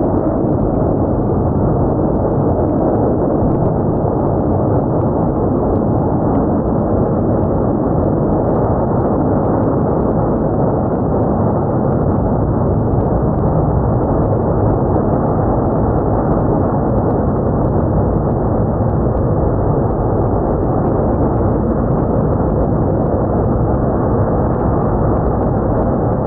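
Antonov An-124's Progress D-18T turbofan engines running, a loud, steady roar with a low drone underneath.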